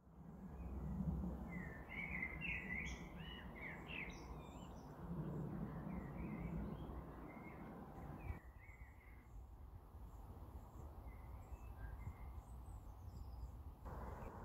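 Small forest songbirds chirping and singing, with a burst of calls in the first few seconds and scattered notes after, over a steady low rumble of outdoor background noise.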